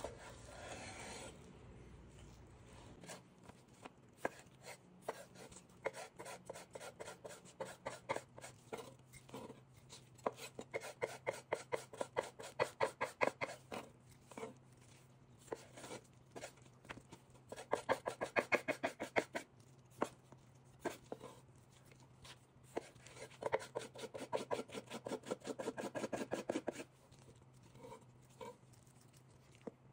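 Chef's knife dicing roasted kielbasa on a wooden cutting board: several runs of quick, even chopping strokes, about five a second, with pauses between the runs.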